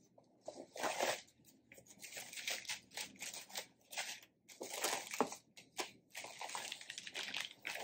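Tissue paper rustling and crinkling in irregular bursts as it is unfolded inside a cardboard gift box.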